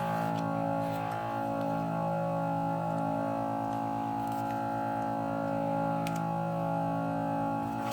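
Background music with a guitar, steady and sustained.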